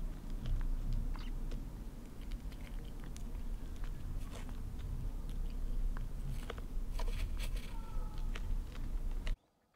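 Kitten eating from a plate: many small clicks of chewing and licking over a low rumble, cut off abruptly near the end.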